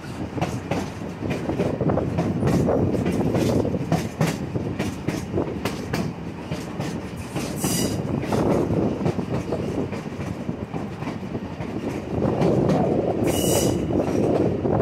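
Train ride heard from an open car: steel wheels rumbling over the track with frequent sharp clicks and a clickety-clack. There are two short bursts of high-pitched noise, about eight and thirteen seconds in, and the rumble grows louder near the end.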